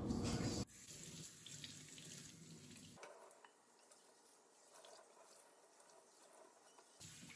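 Kitchen faucet running onto a steel wok in a stainless sink while hands rub the wet surface. The sound drops abruptly under a second in and goes on as fainter running water splashing off the wok during the rinse.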